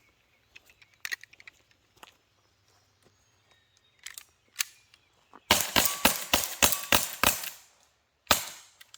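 CO2-powered air pistols firing: a few light clicks, then two sharp shots about four seconds in, a quick string of about eight shots, and one more shot near the end.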